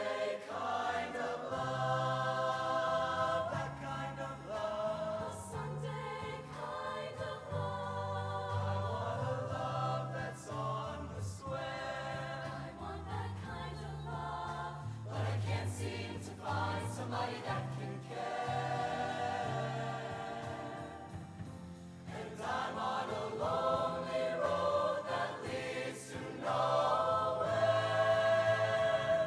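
High school show choir singing sustained chords in harmony over instrumental backing, with a bass line moving note by note underneath.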